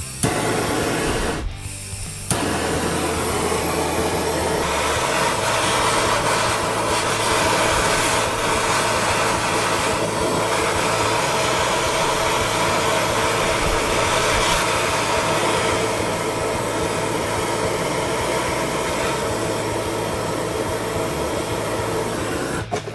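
Handheld gas torch burning with a steady hissing roar, heating a seized screw on a Harley primary case to free it. It cuts out briefly about a second and a half in, then burns on.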